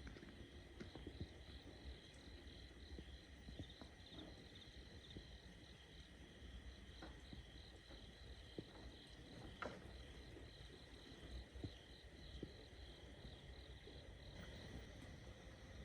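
Crickets and other insects chirring steadily in a pulsing chorus, faint, with a few scattered small clicks and knocks.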